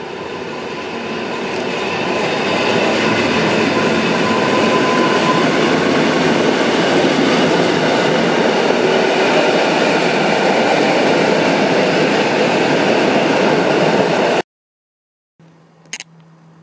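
Koleje Mazowieckie EN57AKM electric multiple unit running in along the platform close by, its rolling noise growing louder over the first few seconds and then holding steady. The sound cuts off abruptly about 14 seconds in. It is followed by faint hum and one short click.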